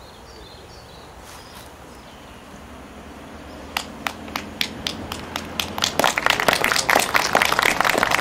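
Audience applause outdoors. A few separate claps start about halfway through, then more hands join and it builds to full applause near the end. Faint bird chirps can be heard before it.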